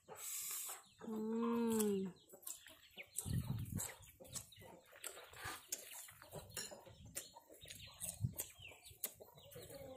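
Close-up eating sounds: small wet clicks and crunches of fried fish and raw cucumber being chewed, with a crunch right at the start. Chickens cluck in the background, and there is one drawn-out call about a second in.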